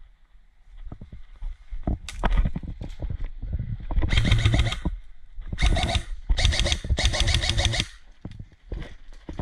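Airsoft rifle firing on full auto in several bursts of rapid clacks. The longest bursts run about a second each, between about four and eight seconds in.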